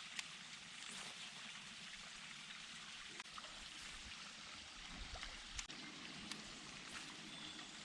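Faint steady hiss of water, with a few small ticks scattered through it.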